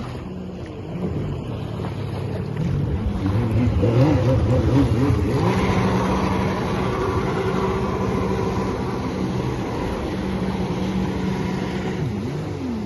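Jet ski engine running under way. It grows louder and its pitch wavers about four seconds in, then holds steady, with a brief dip and rise in pitch near the end.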